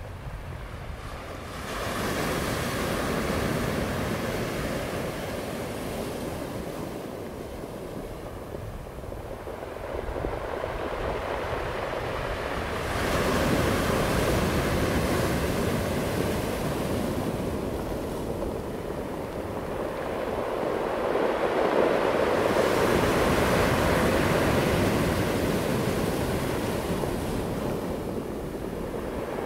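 Ocean surf breaking and washing in: a steady rush of water that swells and falls back in slow surges several seconds apart.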